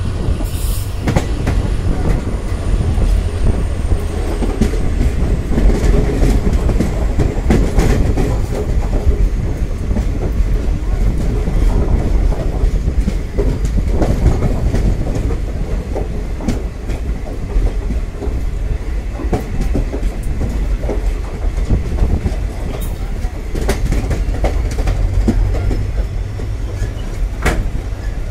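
Passenger train coach running along the track, heard from on board: a steady low rumble with wheels clicking and knocking over rail joints.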